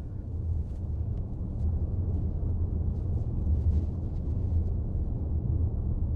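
A deep, steady low rumble of a film soundtrack's drone, swelling slightly over the first two seconds and then holding. Faint light rustles and ticks sit above it as gauze is peeled away from the eyes.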